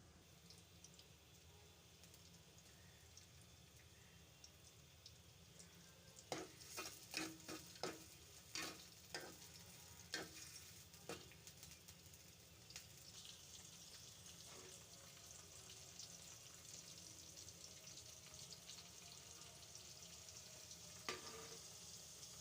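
Faint sizzling of food frying in a pan. Several sharp knocks of a stirring utensil against the pan come about a third of the way in. The sizzle grows stronger after the halfway point, with one more knock near the end.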